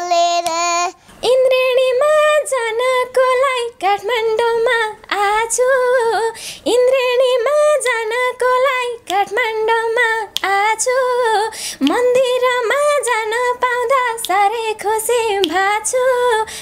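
A teenage girl singing a Nepali folk song unaccompanied, in held, wavering notes. Just before she starts, a child's high held note ends about a second in.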